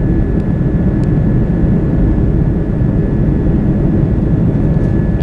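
Cabin noise of an Airbus A330 climbing out after takeoff: the steady roar of the jet engines and rushing air, with a thin steady whine above it.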